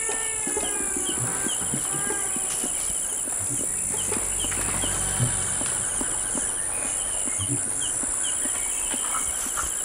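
Tropical forest insects: a steady high-pitched drone with short chirping trills repeating about once a second. A few calls falling in pitch come in the first two seconds.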